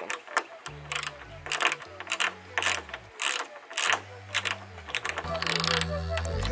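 Hand ratchet and socket clicking in short runs of strokes as a bolt is run in, a few clicks a second with brief pauses between runs.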